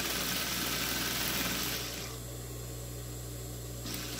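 Sewing machine running as it stitches through layered cotton fabric. It runs for about two seconds, stops, and starts again shortly before the end. A steady low hum continues between the runs.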